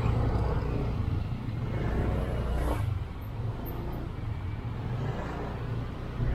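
Honda Click 125i scooter riding through city traffic: a steady low engine and road rumble with traffic around it, a little louder for the first three seconds and then easing.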